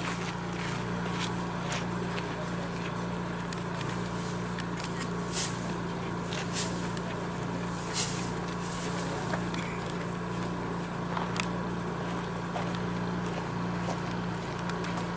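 Steady low hum over outdoor background ambience, with a few brief sharp rustles or clicks about five, six and a half and eight seconds in.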